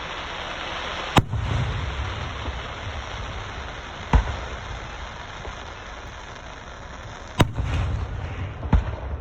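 Fireworks going off: four sharp bangs, about three seconds apart and then two close together near the end, the first and third each followed by a low rumble, over a steady background hiss.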